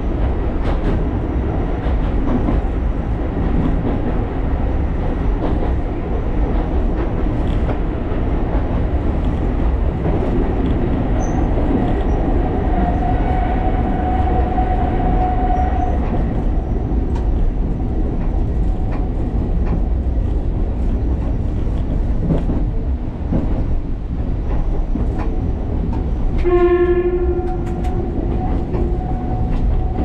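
Alishan Forest Railway train running: a steady rumble with scattered clicks from the wheels on the rails, and a thin steady whine for about four seconds midway. Near the end the train's horn sounds one short blast that trails off.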